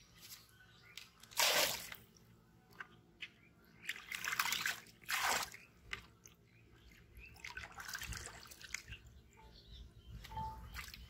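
Water splashing and sloshing as a plastic bucket is dipped into pond water and lifted out, in several bursts; the sharpest splash comes about one and a half seconds in.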